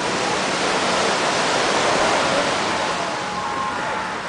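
Small waves breaking and washing up a black-sand shore: a steady rush of surf that swells to its loudest about halfway through, then eases.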